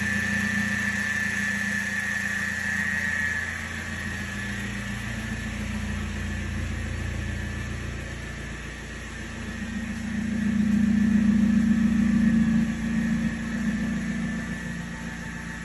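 Car engine running with a noisy exhaust, steady at first and then swelling louder about ten seconds in before dropping back. This is the exhaust noise the customer complained of, from a badly welded exhaust. A steady high whine sounds over it for the first few seconds.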